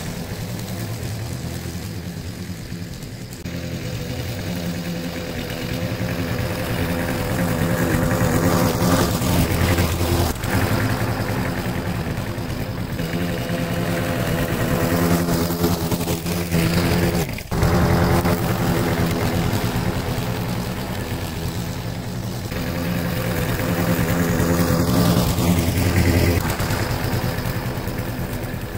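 Briggs & Stratton single-cylinder engine on a walk-behind lawn mower running steadily while cutting grass, its level rising and falling as the mower is pushed along, with one brief dip about two-thirds of the way in.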